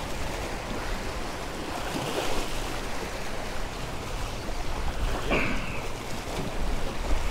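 Small waves washing and splashing against the jetty's rock blocks, with wind buffeting the microphone.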